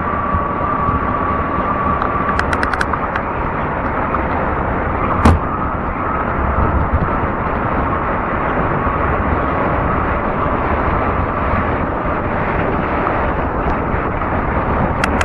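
Riding a fat-tire electric bike: continuous wind and rolling noise on the microphone, with a steady high whine from the bike that fades after about two seconds. A few sharp clicks come at about two and a half seconds, and one louder knock a little after five seconds.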